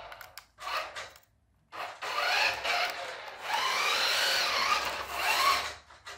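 Radio-controlled Lightning McQueen toy car's small electric drive motor whining in bursts as it is driven forwards and back, its pitch rising and falling as it speeds up and slows. One short burst comes about half a second in, then a longer run from about two seconds on with brief breaks.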